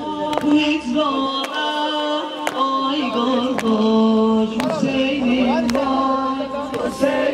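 A single voice sings a slow Ashura mourning lament in long held notes. Mourners strike their chests in unison about once a second.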